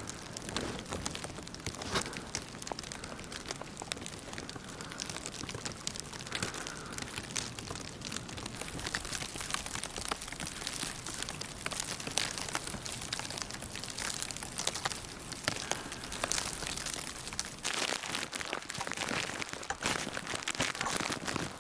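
Wind-blown snow ticking and crinkling against clothing and the microphone in a blizzard, a dense irregular crackle that never stops.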